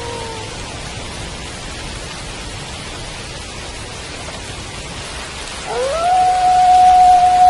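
Steady rain with a wolf howling: one howl falls away and ends just after the start, then about six seconds in another rises quickly and holds a long steady note, louder than the rain.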